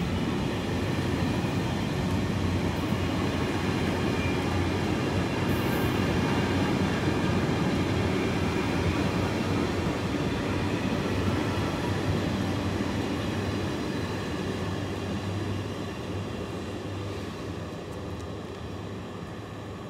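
Container wagons of a freight train running through at speed, a steady rumble of wheels on rail that fades away over the last few seconds as the end of the train recedes.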